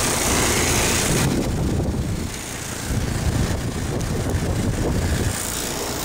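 A 2006 Trane XL14i 5-ton air conditioner condensing unit running: a steady low rumble of the outdoor fan and compressor, with a high hiss of air that drops away after about a second.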